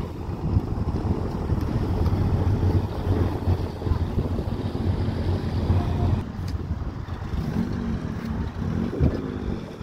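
Wind buffeting the microphone with a low rumble, under a classic car's engine running as it drives past. In the last few seconds an engine's pitch rises and falls.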